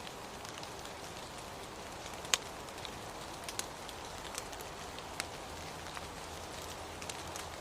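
Steady rain, with scattered close drops ticking sharply on a surface; one drop about two seconds in is much louder than the rest.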